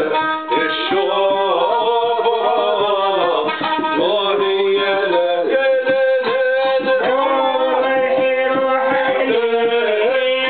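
Middle Eastern music: a violin held upright on the knee plays long, sliding notes alongside a male voice, over steady hand-drum beats.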